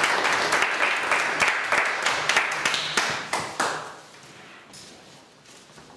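Church congregation applauding, a crowd's hand-clapping that dies away about four seconds in.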